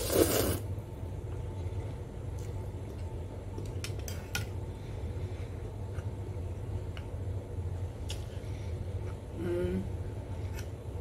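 A short loud slurp of noodles being sucked in, then eating sounds with a few light clicks of a metal fork against a dish, about 4 and 8 seconds in.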